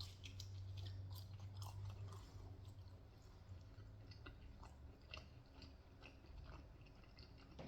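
Faint chewing of pizza close to the microphone, with scattered small wet mouth clicks, over a low steady hum.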